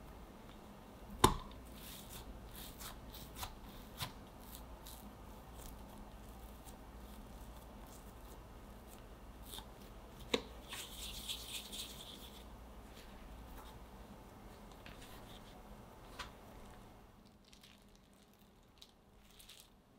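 Hands rolling and shaping soft yeast doughnut dough into balls on a silicone mat: soft rubbing, patting and small taps. There is a sharp knock about a second in and another about ten seconds in, and it goes quieter near the end.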